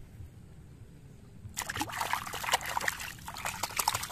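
Shallow water splashed and sloshed by a hand swishing a plastic toy animal through it, starting about one and a half seconds in.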